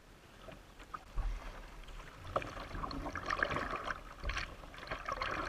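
River water splashing and lapping against a plastic kayak, in small irregular splashes that build up over the first couple of seconds. A low rumble of wind on the microphone comes and goes.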